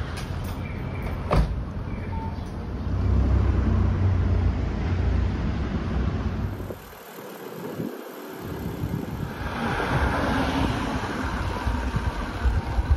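Street traffic: vehicles passing with a low engine rumble that swells a few seconds in. The sound drops out briefly about seven seconds in, then a steady rushing noise of passing traffic returns.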